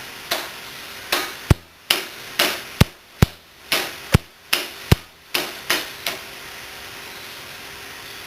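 The back of a hammer tapping on a Lifan 140 engine to knock a stuck part loose during teardown. About a dozen sharp, uneven strikes over roughly six seconds, then they stop.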